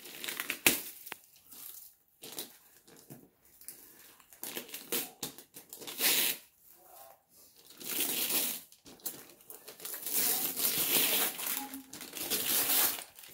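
Gift wrapping paper crinkling and tearing as it is ripped off a box by hand, in irregular rustling stretches that grow longer and louder in the second half.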